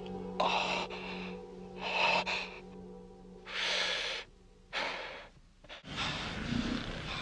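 A man's breathy, ecstatic gasps and moans from a film soundtrack, four separate breaths, over a steady low music drone; about six seconds in the scene changes and a fuller, noisier background comes in.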